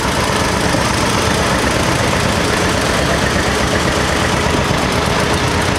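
John Deere 620 tractor's two-cylinder engine, fuelled by LP gas, running steadily as the tractor drives past, a fast even stream of firing pulses.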